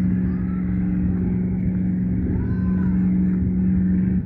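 Motorboat engine running with a steady low drone as the boat passes; the sound cuts off abruptly near the end.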